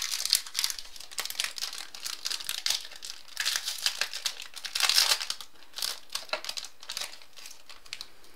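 A trading-card pack wrapper being torn open and crinkled in hand, a dense crackle that comes in bursts, loudest at the start and about five seconds in, thinning out near the end.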